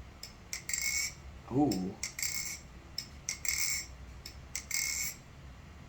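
NRB SLight titanium butterfly knife being flipped: quick clicks and clacks of the handles, each flip ending in a bright metallic ring, four times over. The ringing is the sound the flipper is pleased with.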